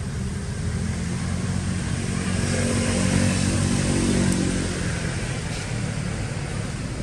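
A motor vehicle's engine passing by: it swells to its loudest about three to four seconds in, then fades, over a steady low traffic rumble.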